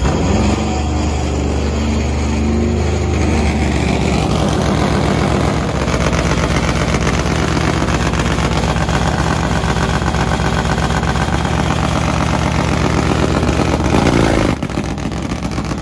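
Top Fuel nitro drag motorcycle engine running loudly at idle, a rapid, even rumble of firing pulses. The sound drops off sharply near the end.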